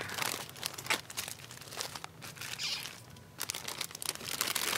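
Plastic packaging crinkling and crackling as a hand handles it on a store shelf, easing off for a moment in the middle.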